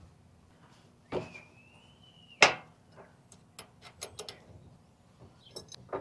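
Small metal clicks and ticks as a screw is worked out of the wire stripper's feed plate with an Allen wrench. There is a sharper click about two and a half seconds in and a quick run of light ticks after it, and before it a thin high tone lasts about a second.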